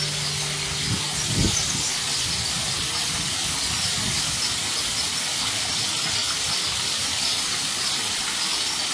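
Garden fountain water pouring and splashing steadily into a stone pool, with a brief low thump about a second and a half in.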